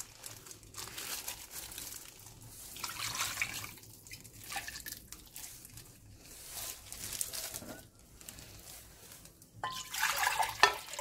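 Liquid pouring and splashing from a glass bowl into a pot of raw beef short ribs: soy braising sauce in several separate pours, then water running into the bowl and over the ribs near the end, the loudest pour.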